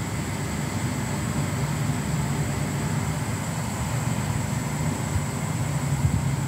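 Steady low hum with a faint, constant high-pitched whine above it.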